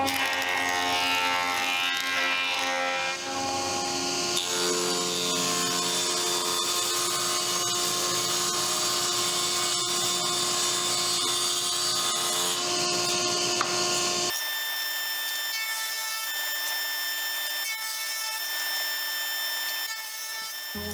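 Power tools working wood: a steady motor whine with drilling and sawing noise in the wood. The sound changes abruptly about 4 seconds and again about 14 seconds in, as one tool or cut gives way to the next.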